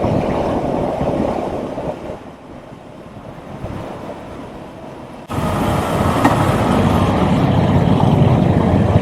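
Vehicle engine rumble with wind buffeting the microphone, dipping quieter for a few seconds and then cutting back in abruptly at full level about five seconds in.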